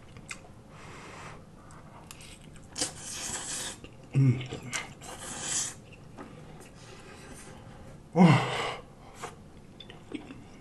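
Close-up slurping of spaghetti noodles, several wet sucking hisses in a row, with mouth clicks and chewing. Two short vocal sounds from the eater, about four and eight seconds in, the second the loudest.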